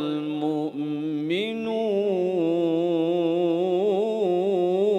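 A man's voice reciting the Quran in a slow, melodic style, holding long wavering notes. A short breath about 0.7 seconds in, then a new drawn-out phrase that steps up in pitch about a second and a half in.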